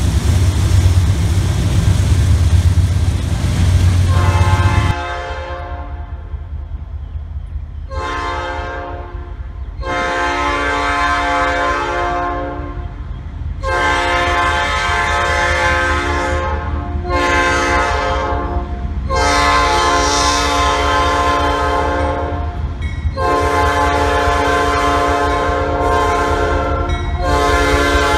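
Diesel freight locomotive's multi-chime air horn sounding a series of blasts, long and short, in a long-long-short-long sequence like a grade-crossing signal, followed by more long blasts. A low engine rumble runs under it, loudest in the first few seconds before the horn starts.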